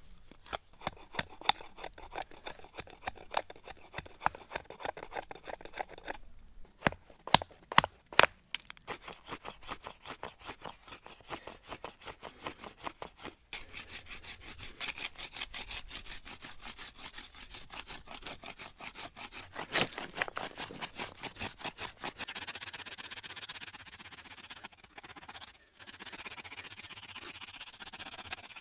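Sharp stone flake scraping and whittling the end of a wooden bow-drill spindle into a cone, in quick repeated rasping strokes. A few sharper clicks come about seven to eight seconds in.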